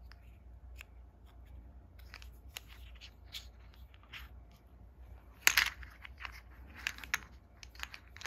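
Clay poker chips clicking against each other as a small stack is handled and turned in the hand: irregular light clacks, with one louder clack about five and a half seconds in.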